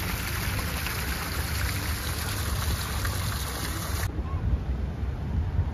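Water from a lion-statue fountain's spouts splashing into its stone basin, a steady hiss that cuts off suddenly about four seconds in, over a low rumble of wind on the microphone.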